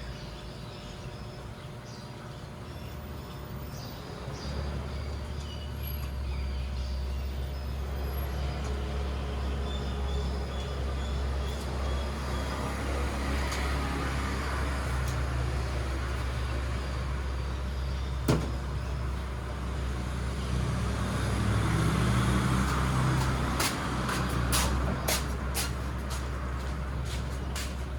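A machine running with a steady low hum that sets in a few seconds in, with one sharp click about two-thirds of the way through and a run of clicks near the end.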